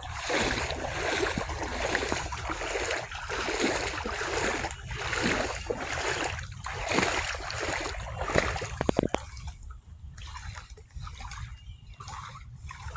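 Wading through floodwater, sloshing and splashing in a steady rhythm of strides. The sloshing stops about two-thirds of the way through, leaving a quieter trickle of moving water.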